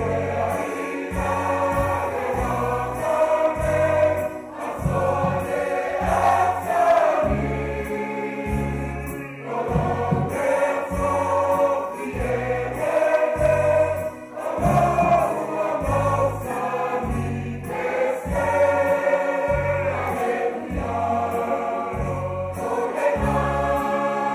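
Music: a group of voices singing together over a steady, regular bass beat.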